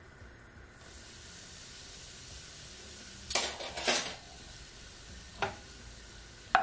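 Curry powder sizzling as it goes into hot olive oil in a nonstick wok, a steady hiss starting about a second in as the powder begins to brown. Two brief louder bursts come around three and four seconds in, and a small click later.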